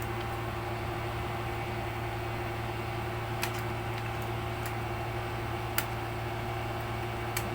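Steady low hum with about five light, sharp clicks spread through the second half: small parts being handled while an SSD is fitted into an open laptop.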